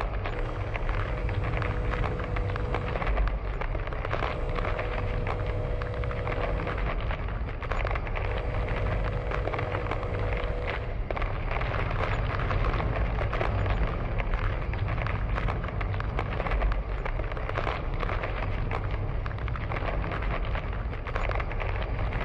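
Earthquake sound effect: a continuous deep rumble with dense crackling and crumbling noise over it. A held tone sounds three times, each for about three seconds, in the first half.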